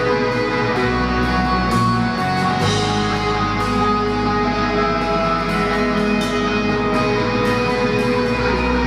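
Live rock band playing an instrumental passage: electric guitars holding ringing notes over bass guitar and a drum kit, with repeated cymbal hits.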